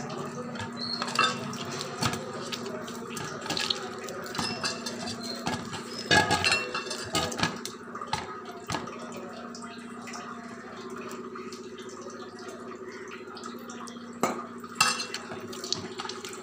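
Dough being kneaded by hand in a stainless steel bowl, the bowl clanking and scraping in scattered clusters, most strongly about six seconds in and again near the end, over a steady low hum.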